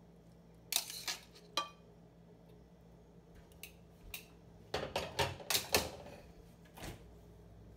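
Metal fork clinking and scraping on a plate while twirling spaghetti. A few sharp clinks come about a second in, a quick cluster around five seconds in, and one more near the end.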